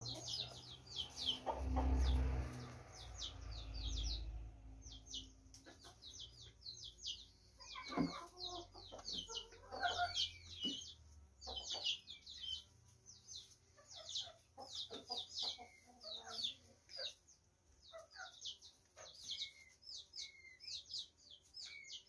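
Juvenile peafowl peeping: rapid, high, downward-sliding chirps repeat all through, with a few lower clucking calls about 8 and 10 seconds in. A low rumble sits under the first few seconds.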